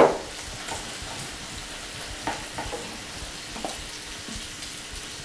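Bacon strips sizzling steadily in a frying pan, with a brief loud sound right at the start and a few soft knocks in the middle as a portobello mushroom is handled and turned over on a plate.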